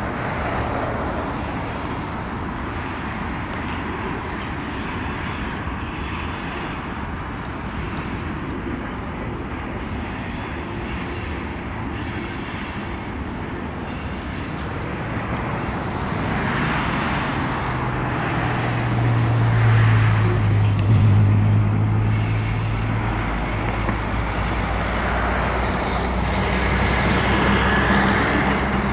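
Freight train cars rolling past on steel rails, a steady rumble and clatter of wheels. About two-thirds of the way in, a low diesel locomotive engine hum swells, loudest a little after that, and carries on alongside the rolling cars.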